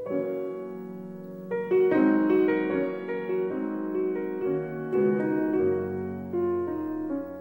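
Solo grand piano playing a slow, gentle classical-style piece, with single notes and chords struck one after another and left to ring.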